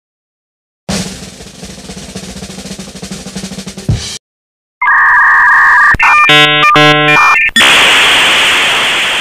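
Snare drum roll sound effect for about three seconds, ending in a hit. After a short pause come loud electronic tones in short choppy bursts, then a loud hiss that slowly fades.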